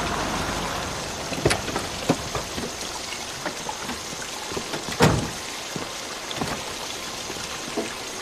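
Steady hiss of rain with scattered short knocks and drips, the heaviest knock about five seconds in.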